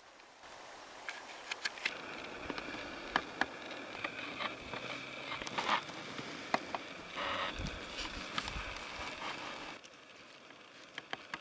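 Dry grass and brush rustling and crackling under people's movement, with many scattered sharp snaps. The noise drops away abruptly near the end.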